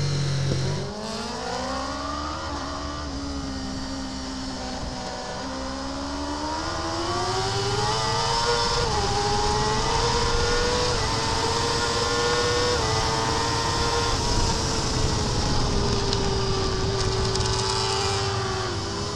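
Racing superbike's inline-four engine at full race pace, with wind rushing past. The pitch climbs hard from about a second in, dips, then climbs again in small steps and holds high before easing off near the end.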